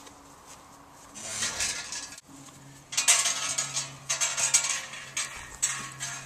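Metal portable corral panels clanking and rattling as they are handled. It starts about a second in and grows louder and busier from about three seconds in.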